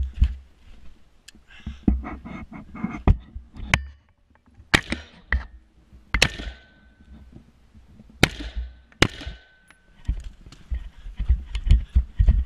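Four rifle shots from an AR-pattern service rifle, spread over about four seconds, each with a short echo. They come between stretches of low thumps and knocks from moving with gear.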